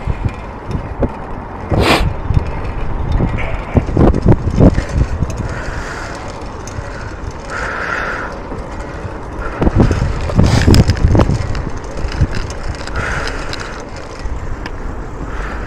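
Bicycle being ridden over rough, patched tarmac: a constant low road rumble with rattles and knocks from the bike. There is a sharp knock about two seconds in, and clusters of heavy jolts around four and ten seconds in.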